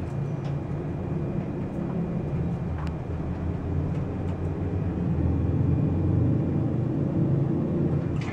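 Sigma-modernized Goldstar geared traction elevator travelling upward, heard from inside the car as a steady low rumble and hum that swells a little in the second half, with a few faint ticks.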